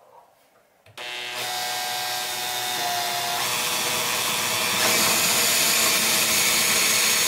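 Makita 18V cordless drill running steadily, its bit boring a hole into the wooden top of a TV stand. The motor starts about a second in and gets louder about five seconds in.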